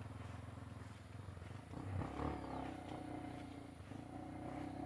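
Motorcycle engine running at low revs; the revs pick up about two seconds in and hold higher.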